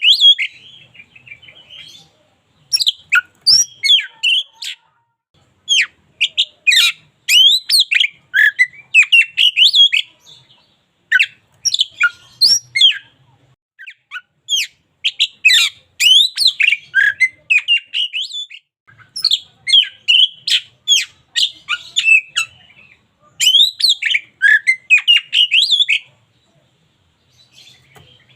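Oriental magpie-robin singing: bouts of quick, varied whistles mixed with harsher chirping notes, each bout a second or two long with short pauses between, and a longer pause near the end.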